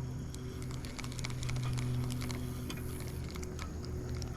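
Fishing reel being cranked to retrieve a cast, giving a fast run of small clicks and ticks. A steady low hum runs underneath.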